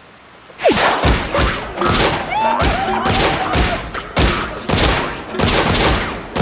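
Rapid pistol gunfire: two handguns firing shot after shot, about two or three shots a second, starting about half a second in.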